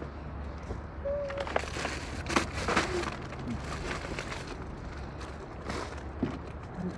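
Plastic grocery packaging and bags rustling and crinkling as items are lifted out of a plastic shopping cart, in irregular bursts of sharp crackles. A short child's vocal sound comes about a second in.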